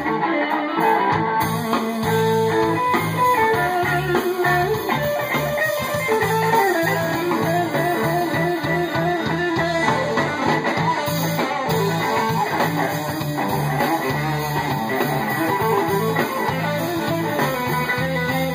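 Live rock band playing an instrumental break without vocals: electric guitar lines over bass guitar and a drum kit, with a steady beat throughout.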